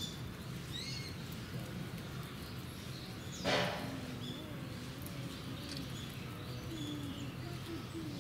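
Open-air ambience of small birds chirping over a steady low hum, with faint voices of other visitors in the distance. One short, loud cry stands out about three and a half seconds in.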